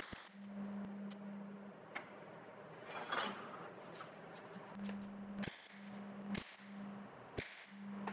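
MIG welding arc striking short tack welds, about four brief crackling bursts of arc hiss as a steel piano hinge is tacked to a steel door, over a steady low hum.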